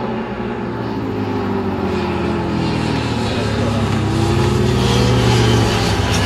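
Sport motorcycle engines passing by at speed. Their pitch falls over the first two seconds, then rises again as throttle comes on, loudest about five seconds in.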